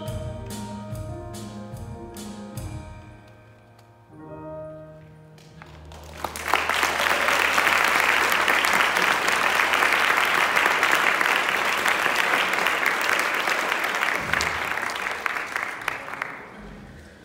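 The last held notes of a piece of music fade away over the first few seconds. Then an audience applauds from about six seconds in for some ten seconds, dying down near the end.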